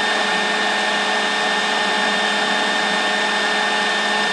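Steady whirring background noise, like a fan or small motor running, with a thin constant high whine and no change in level.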